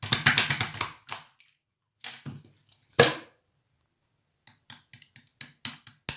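Clear slime being squished and pressed by hand, making wet clicks and pops. There is a quick run of clicks at the start, one loud pop about three seconds in, and scattered clicks again in the last second and a half.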